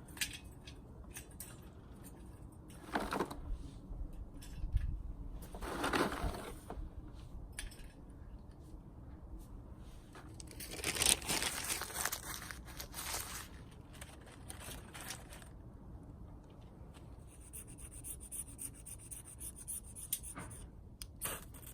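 Intermittent handling noises: a few short scraping or rustling strokes several seconds apart, the longest near the middle, then a faint hiss and a few light clicks near the end.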